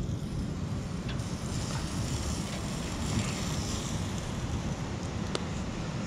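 Wind buffeting the microphone in a steady low rumble, with ocean surf washing in the background and one sharp click about five seconds in.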